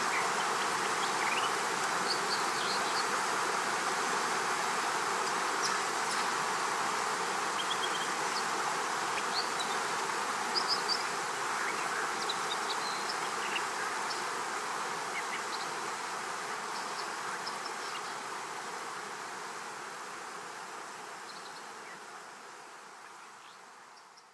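Steady outdoor ambience: a dense hum with scattered short, high chirps. It fades gradually over the last ten seconds or so and cuts off at the end.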